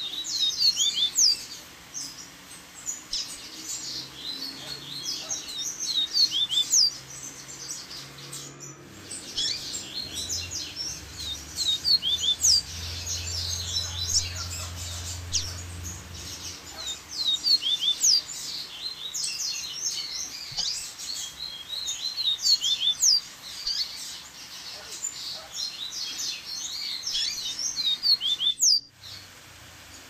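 Double-collared seedeaters (coleiros) chattering and singing together: a dense run of quick high chirps and sharp falling whistles, broken by two brief gaps, about a third of the way in and near the end.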